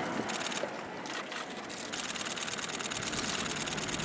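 Airbus A400M's four turboprop engines and eight-bladed propellers in flight, a steady drone with a fast, even pulsing.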